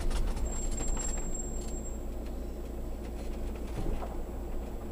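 Motorhome engine running as it moves slowly onto a pitch: a steady low rumble, with a few light clicks in the first two seconds.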